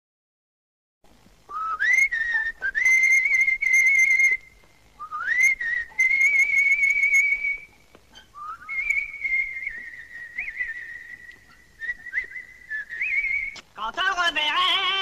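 A whistled melody of three long phrases, each sliding up into a high note and holding it with a slight waver. Near the end a singing voice comes in.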